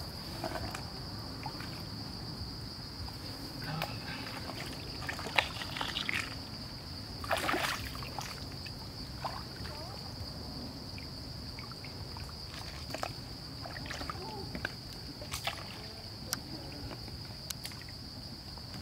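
Insects droning steadily at one high pitch, with scattered splashes and sloshing of water, the loudest about seven and a half seconds in.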